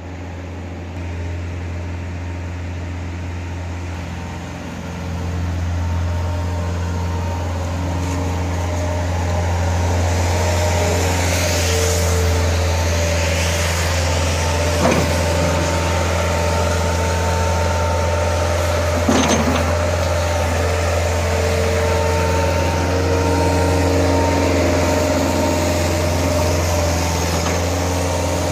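Bobcat S130 skid-steer loader's four-cylinder Kubota diesel engine running steadily as the loader is driven and works its bucket. The engine gets louder about five seconds in. Two sharp knocks come a few seconds apart around the middle.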